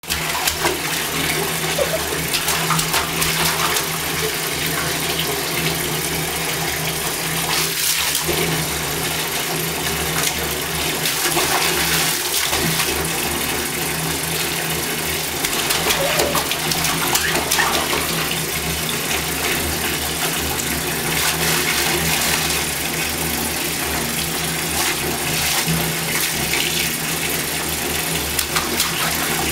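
Bath tap running, a steady stream of water pouring into a half-full bathtub.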